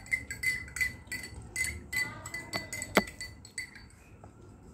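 A spoon clinking rapidly against a drinking glass as it stirs, the glass ringing with each stroke; the strongest clink comes about three seconds in, and the clinking dies away shortly after.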